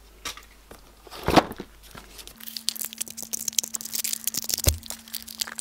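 A single knock about a second in, then the plastic wrapping of a toy blind pack crinkling and tearing in quick crackles as it is opened, from about halfway through.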